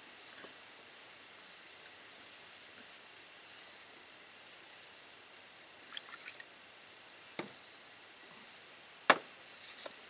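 A few light clicks and taps from handling a can of evaporated milk and utensils over a metal mixing bowl, with one sharp knock about nine seconds in. A steady high insect drone runs underneath.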